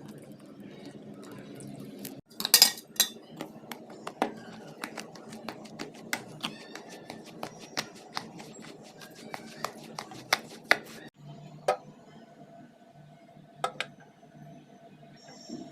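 A metal utensil clinking and knocking against metal cookware in a long, irregular run of sharp clinks that starts about two and a half seconds in, over a steady low hum.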